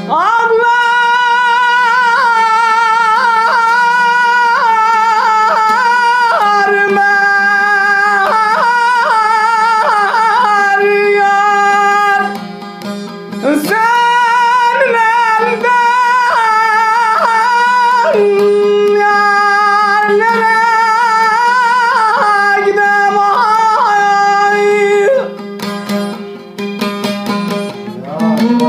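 Uzun hava, a Turkish free-rhythm folk song: a voice sings two long, held, ornamented phrases over plucked-string accompaniment and a steady drone. The singing stops near the end, leaving the plucked strings alone.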